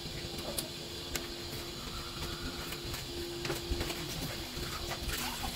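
Soup at a rolling boil in an aluminium pot on a gas burner: a steady hiss with scattered small pops and clicks of bubbles and metal.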